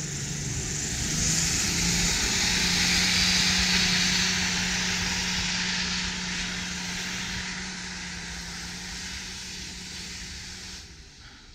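Lifted 4x4 off-road truck on large mud tyres driving past and away through deep snow: a steady engine drone with the hiss of tyres churning snow, loudest a few seconds in and then fading as it pulls away, cut off shortly before the end.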